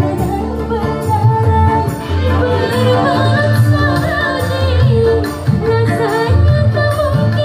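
Live dangdut band music played loud through a PA: a woman sings the melody into a microphone over keyboard and a steady drum beat.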